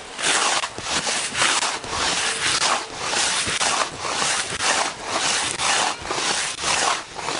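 Rhythmic scraping swishes, about two a second, from a snowboard swivelling back and forth on snow and a jacket rubbing as the rider swings his arms and twists his upper body.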